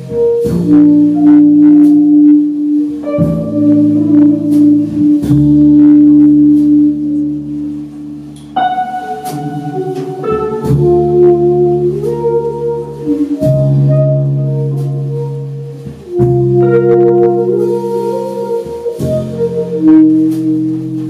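Live jazz band playing saxophone, double bass, keyboard and drums, with held chords that change every second or two.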